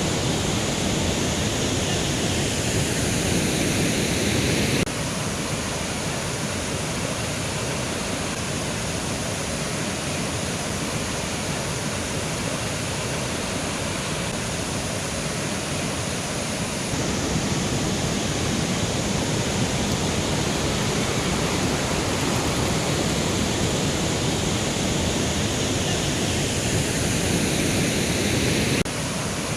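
Mountain river rushing steadily over rocks, a dense even roar of water. Its level steps down abruptly about five seconds in, rises again after about seventeen seconds, and drops again near the end.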